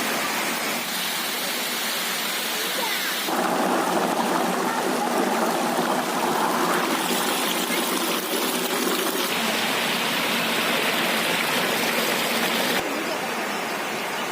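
Steady rushing water, changing character abruptly every few seconds where separate recordings are cut together.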